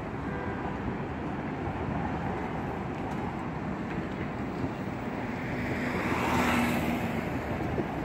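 Road traffic on a city bridge: a steady rumble of cars and vans passing close by, with one vehicle passing nearest and loudest about six seconds in.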